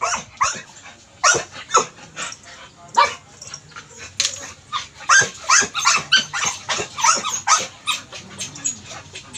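Dog barking over and over in short, sharp barks, coming quickest from about five seconds in.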